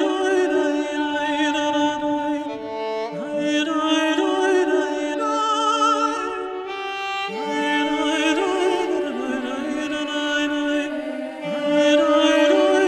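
Background music: a slow melody of long, wavering held notes in phrases that start again about every four seconds.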